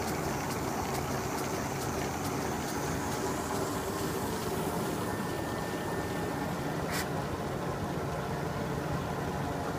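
Seewer Rondo dough sheeter running, its motor, rollers and conveyor belts giving a steady mechanical hum. There is light regular ticking in the first few seconds and a single sharp click about seven seconds in.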